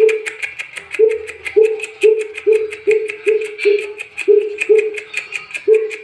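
Coucal (bubut) giving its deep hooting call: a series of about a dozen low, even hoots at roughly two a second, with a short break near the end. A fast, regular high ticking and chatter runs behind the hoots.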